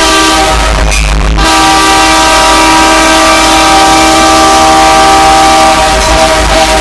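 Train air horn sounding a chord of several steady tones: a short blast, then a long held blast starting about a second and a half in. The audio is boosted until it distorts heavily.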